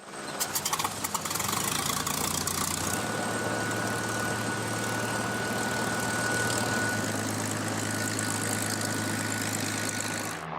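Hawker Hurricane's Rolls-Royce Merlin V12 aero engine running on the ground. It starts abruptly with a few sharp pops in the first second, then runs steadily and loudly.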